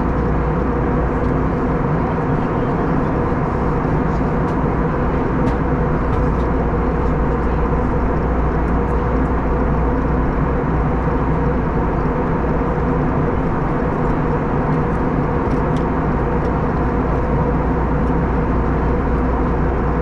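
Airbus A321neo cabin noise during the climb to cruise: a steady rush of air and engine hum with a few constant tones in it, unchanging throughout.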